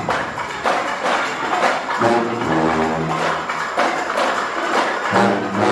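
Marching band playing: drums keep a steady beat of about two strokes a second under loud brass chords that come in phrases, one about two seconds in and another near the end.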